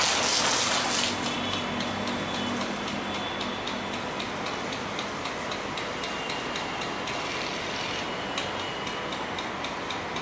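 A rain gun sprinkler running: a steady hiss of the water jet and spray, with a fast, even ticking from the gun. A louder rush of spray fills the first second.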